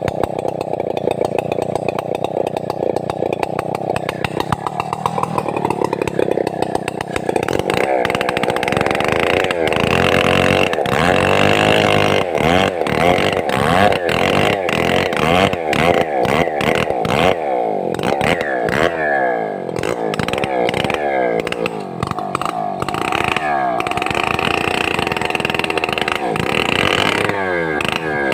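Stihl 070 two-stroke chainsaw running loudly, its engine speed rising and falling over and over from about a quarter of the way in.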